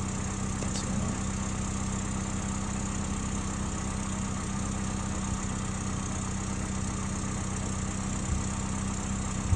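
Freshly rebuilt Toyota 1ZZ-FE 1.8-litre four-cylinder engine idling steadily, a little high, with the electric radiator cooling fan running. The owner notes a slight exhaust leak.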